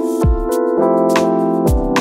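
Background music: held keyboard chords over a steady electronic beat of kick drum and sharp high percussion.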